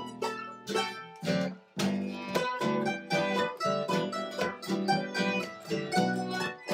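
Small acoustic band playing an instrumental passage: acoustic guitars picking in a steady rhythm, with keyboard.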